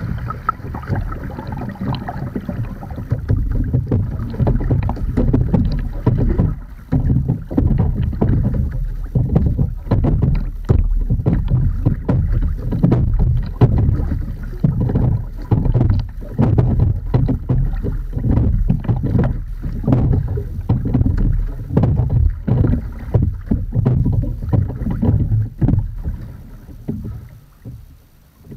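Water washing against the hull of an Edon TS515 sculling boat as it is rowed, mixed with wind on the microphone; the sound is mostly low and irregular and fades down near the end.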